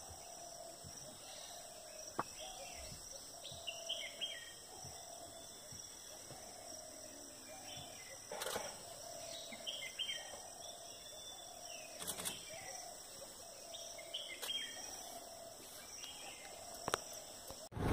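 Faint forest ambience: birds calling with short repeated notes about once a second and scattered higher chirps, over a steady high-pitched insect drone. A couple of faint clicks come in the middle.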